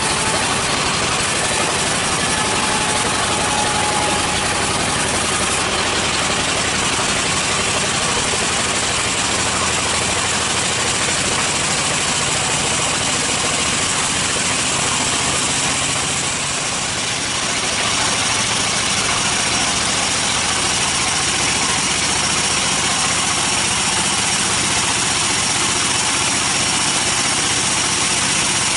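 Band sawmill running, its blade cutting through a wooden slab as it is pushed through: a loud, steady mechanical din of the saw and its drive. It dips briefly about two-thirds of the way through, after which a thin high whine runs under it.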